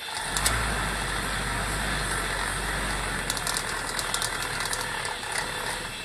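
Homemade air-raid-siren rotor cut from a soda can, spun by a 12-volt DC printer motor without its stator: a steady whirring rush of air over a low motor hum that starts suddenly. A light rattling ticks through the middle, and the sound eases down near the end.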